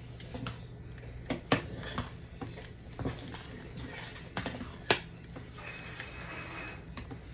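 Metal spoon stirring a stainless steel pot of stewed beans, clinking against the pot several times at irregular intervals, sharpest about a second and a half and five seconds in, over a steady low hum.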